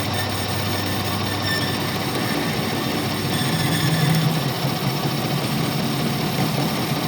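Heavy workshop machinery running steadily with a low hum, which grows a little louder and deeper about halfway through.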